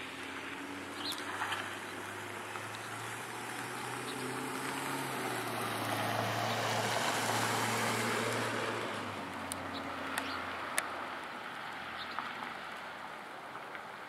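A motor vehicle passing by with a low engine hum, growing louder towards the middle and then fading away. A few short high ticks or chirps come in the second half.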